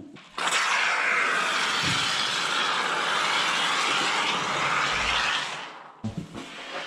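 Aerosol spray can hissing in one long steady spray of about five seconds, stopping, then starting again near the end, likely spraying onto the back of a foam insulation board.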